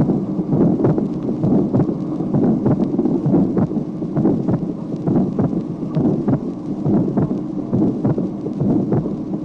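Recorded heart sounds of a patient with an atrial septal defect: a pulmonary ejection murmur with a split second heart sound. The beats come as short repeated strokes over a steady low rumbling noise.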